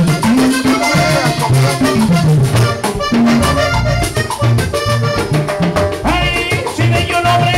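Live salsa band playing: a bass line stepping between notes under drums and hand percussion, with a melody line above.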